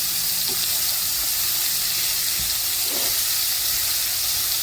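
Beef tips and chopped vegetables, onions among them, sizzling steadily in a frying pan: an even, high-pitched frying hiss.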